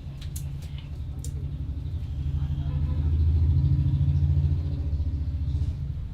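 A motor vehicle's engine passing close by: a low pulsing rumble that swells to a peak in the middle and then fades.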